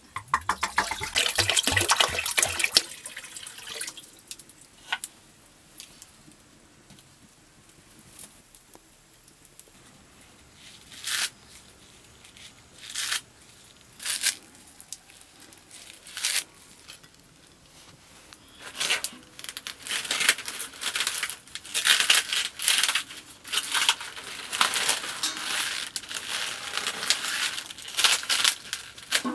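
Liquid poured from a clay jug into a wok, a dense gurgling splash for about two seconds at the start. Then a handful of separate sharp knife cuts as spring onion is chopped by hand. Near the end comes a long stretch of crackly rustling and tearing as leafy mustard greens are handled.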